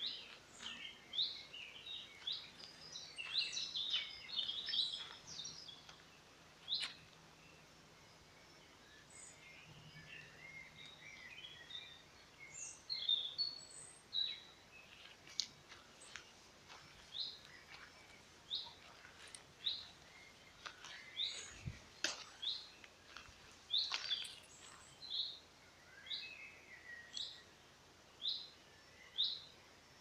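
Songbirds singing: a dense tangle of high chirps and trills in the first few seconds, thinning out, then one bird repeating a short high note about once a second through the second half.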